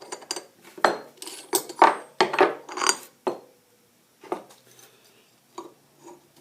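Steel pieces of a pulley remover and installer kit clinking and rattling against each other as they are handled and taken apart, a quick run of clatter in the first three seconds and then a few single clicks.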